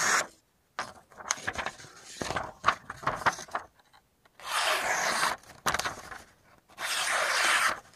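A freshly sharpened Medford Slim Midi blade slicing through a sheet of lined paper. A run of short, scratchy cuts is followed by two long, smooth slicing strokes, about four and a half and seven seconds in. The cuts run cleanly, the sign of a very sharp edge.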